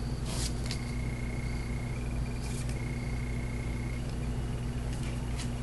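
Trading cards being handled and slid against one another: a few brief soft brushing sounds over a steady low electrical hum.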